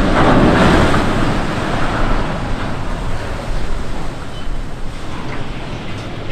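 Rushing, surging water from a ship launched sideways into a canal, the hull's splash sending a wave across the water. Loudest at first, then slowly dying down.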